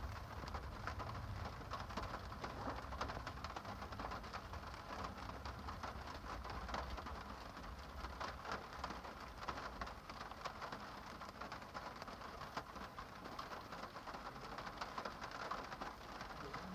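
Steady rain falling on a surface, an even hiss dotted with many small drop ticks, over a low rumble.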